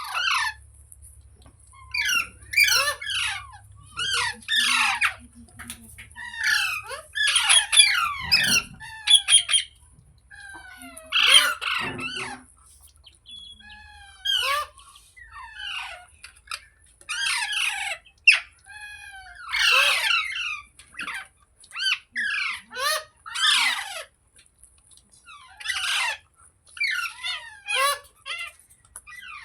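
Green parrot squawking and chirping in quick bursts of harsh, rapidly gliding calls, a burst every second or two.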